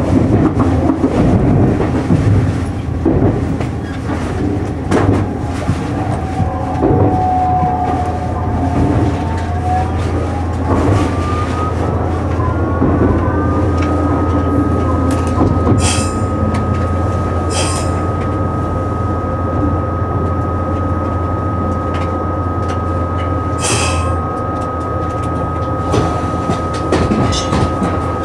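Meitetsu 1030 series electric train running, heard from inside the front car: a steady rumble of wheels on the rails. Partway through, a whine climbs in pitch over several seconds as the train picks up speed, then holds steady. A few sharp clicks come over rail joints and points.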